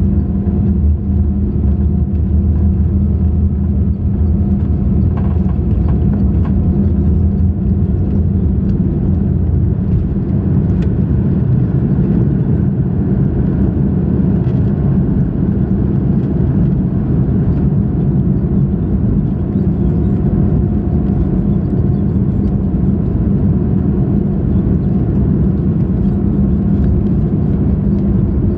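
Cabin noise aboard an Airbus A340-600 at takeoff thrust: a loud, steady rumble from its four Rolls-Royce Trent 500 engines and the rushing air. The deep runway rumble of the takeoff roll in the first half eases once the jet is airborne and climbing.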